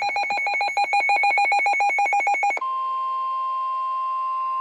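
Rapid electronic beeping, about eight pulses a second, for about two and a half seconds, then a steady single-pitch alert tone: the NOAA Weather Radio 1050 Hz warning alarm tone that signals an emergency warning is about to be broadcast.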